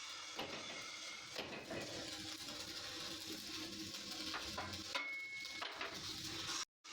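Metal clinks and knocks from work on a steel truck wheel rim, over a steady hiss. The sound cuts out briefly near the end.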